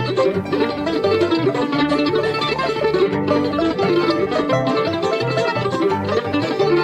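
Bluegrass band playing an instrumental break with no singing: a quick plucked lead line on banjo and mandolin over acoustic guitar rhythm and a steady walking upright bass.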